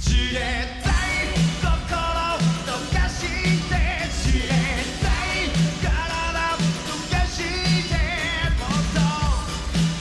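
Live pop-rock band performance: a male lead vocal with vibrato over a band with a steady drum beat.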